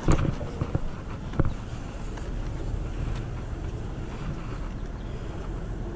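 Steady low outdoor rumble with wind on the microphone, broken by a sharp knock at the start and another about a second and a half in as the camera and the caught sheepshead are handled.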